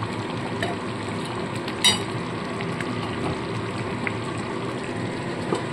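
Thick egg curry gravy simmering in a steel wok, a steady sizzling bubble, with a sharp click about two seconds in.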